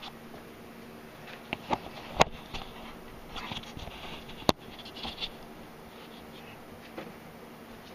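Handling noise as the camera is moved and set down: rustling and scraping with a few sharp knocks, the two loudest a little after two seconds in and about four and a half seconds in, over a steady faint hum.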